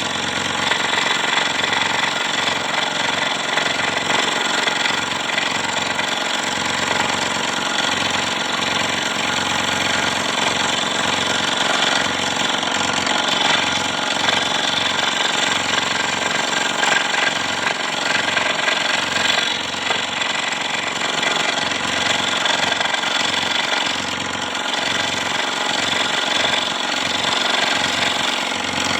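Scroll saw running steadily, its blade chattering up and down as it cuts through wood.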